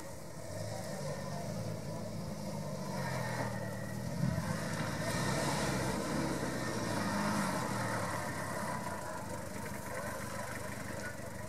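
Toyota Land Cruiser's engine running under load as the 4x4 climbs a grassy off-road slope, getting louder about four seconds in and easing a little near the end.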